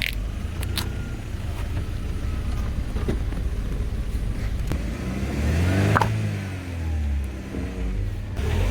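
A car engine running low and steady, then revving up and back down about five seconds in. A few sharp cracks come through it, the loudest about six seconds in.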